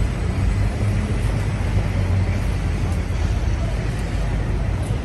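City street traffic in a jam: a steady low rumble of car and bus engines running close by, with constant road noise and no single event standing out.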